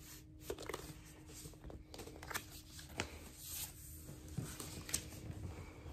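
Handling noise from a vinyl record and its paper inner sleeve and cardboard jacket: soft rustling with scattered light clicks and taps. A faint steady hum runs underneath.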